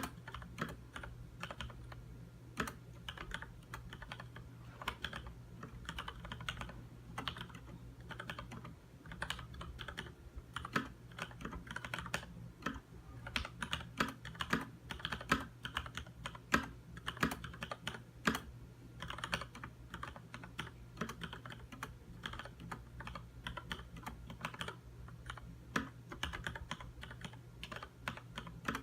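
Typing on a Leopold FC900R mechanical keyboard with Cherry MX Red linear switches: a steady, uneven stream of key clacks, several a second, over a faint low hum.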